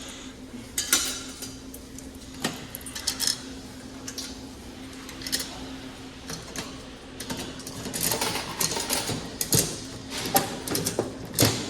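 Coin-operated toy vending machines being worked by hand: quarters going in and the crank mechanisms turning, giving a run of irregular metal clicks and knocks that come thicker in the second half. A steady low hum runs underneath.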